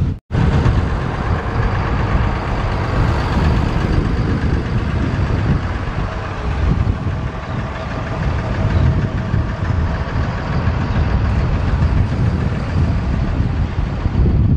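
Twin outboard motors idling under a loud, steady rush of surf and wind. The sound cuts out briefly just after the start.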